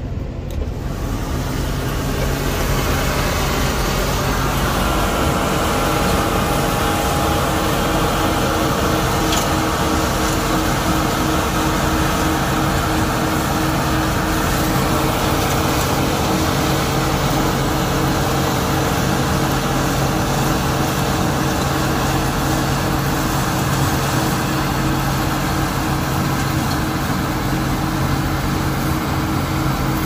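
Combine harvester running under load while it cuts and threshes a pea crop: a steady mechanical hum with several constant whining tones from the engine and threshing drives, holding even throughout.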